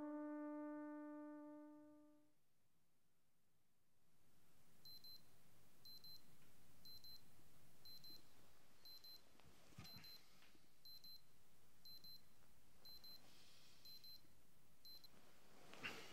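A held brass chord fades out over the first two seconds. Then, after a short hush, a phone alarm beeps: a short, high double beep about once a second, about eleven times, stopping near the end. A brief scuffing noise follows it.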